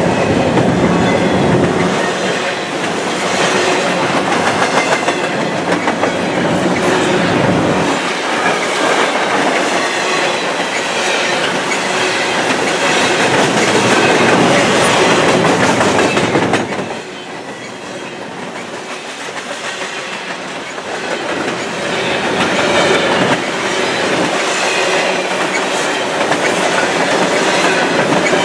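Double-stack intermodal well cars of a freight train rolling past close by: a steady rumble and rattle, with wheels clacking over rail joints. The sound drops quieter for a few seconds about two-thirds of the way through, then builds again.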